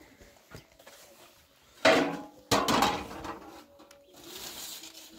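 Metal pots and dishes clattering as they are handled and set down: two loud bursts about half a second apart, a couple of seconds in, then dying away.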